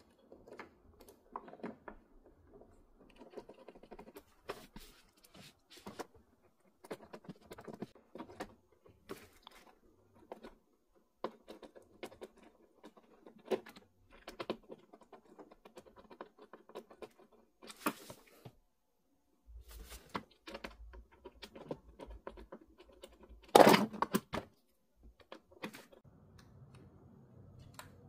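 Small clicks, taps and rattles of plastic parts being handled and fitted together inside a Philips coffee machine's housing during reassembly, with one louder clack late on.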